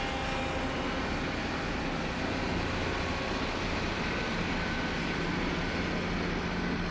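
Diesel engine of heavy road-construction machinery running steadily, a low even hum with no changes in pitch or load.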